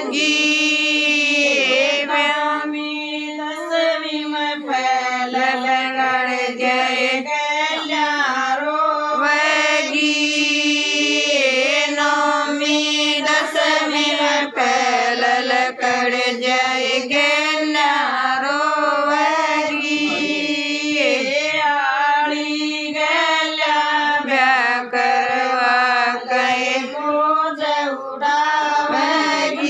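Women singing a Haryanvi folk song (sangeet geet) in a steady, chant-like melody with long held notes.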